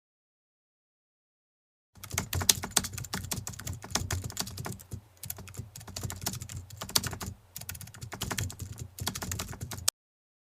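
Rapid typing on a computer keyboard: a fast, uneven run of key clicks that starts about two seconds in, pauses briefly twice, and cuts off suddenly near the end.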